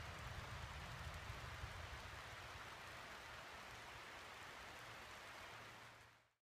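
Steady hiss of light rain falling in the forest, over a low rumble, fading out to silence near the end.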